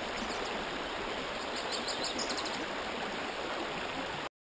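Creek water flowing steadily, with a bird singing a quick run of short high notes about two seconds in. The sound cuts off abruptly just before the end.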